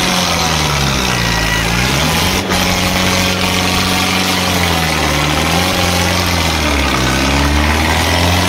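Diesel tractor engines running hard, their engine speed sagging and picking back up several times as if lugging under load.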